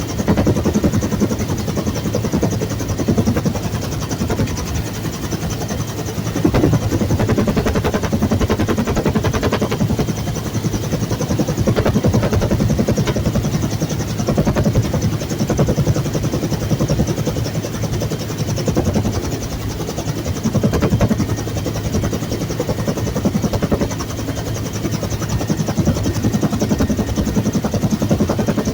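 Bell UH-1 Huey helicopter running loud and steady, its rotor and turbine making a continuous pulsing drone with a low hum.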